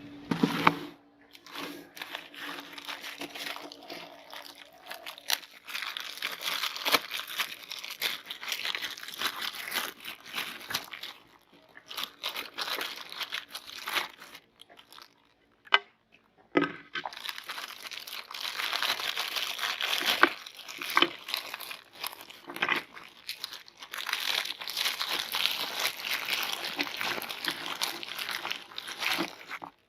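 Soft cookies crunching and crinkling as they are forced through a meat grinder: a dense, uneven crackle of many small cracks, breaking off about halfway and resuming after a sharp crack.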